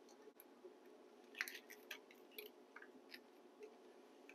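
Faint scattered clicks and crinkles of hands handling automotive wiring and plastic wire loom, with a short cluster of them about one and a half seconds in.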